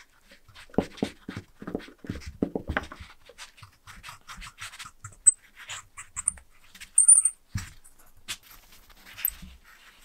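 Pliers twisting and pulling a desoldered pipe out of a brass lighter tank: a run of small scraping clicks and creaks of metal on metal, with short high squeaks, the loudest about seven seconds in.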